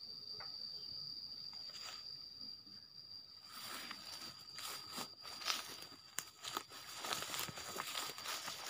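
Footsteps crunching and rustling through dry leaves and undergrowth, starting about three and a half seconds in, over a steady high-pitched insect drone.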